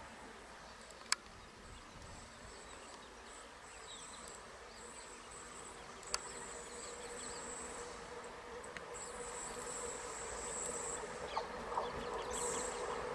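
Insects buzzing high and on and off, over the steady hum of an approaching diesel-electric multiple unit (DEMU) train that slowly grows louder. Two sharp clicks, about a second in and about six seconds in.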